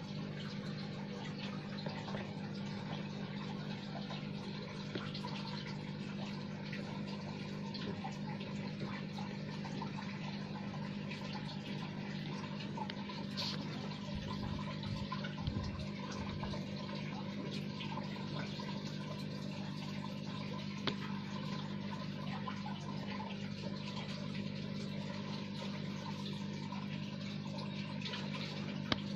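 Steady watery hiss of running water over a low, constant hum, with a few brief low thumps about halfway through.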